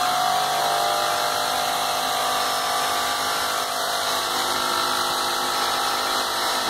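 Graco Magnum LTS 15 airless paint sprayer's electric motor and piston pump running steadily in prime mode, drawing paint up the suction tube and filling the hose.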